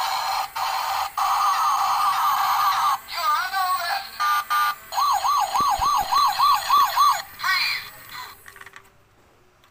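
Battery-powered toy police car playing electronic siren sound effects through its small speaker: a steady warble, then a few slow rising-and-falling wails, then a fast yelp of about three to four rises a second, stopping shortly before the end.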